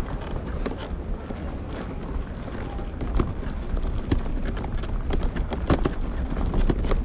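Footsteps walking, sharp irregular clicks about once or twice a second, over a steady low rumble.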